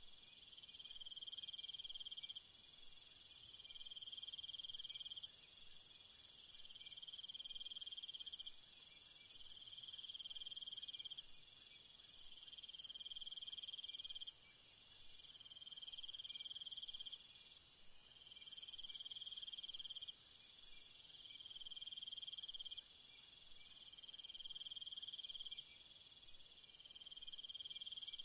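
Night-time chorus of crickets and other insects: a steady high-pitched shrill with a lower trill that starts and stops in phrases every few seconds.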